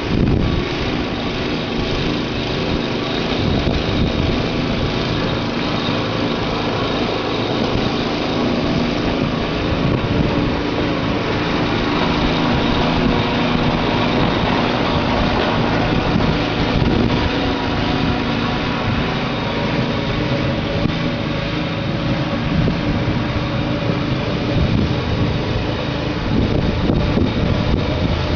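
Snowblower's small engine running steadily.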